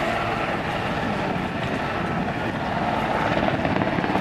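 Super Puma-family military helicopter flying low close by: steady rotor and turbine noise with a fast, even rotor beat, getting a little louder near the end.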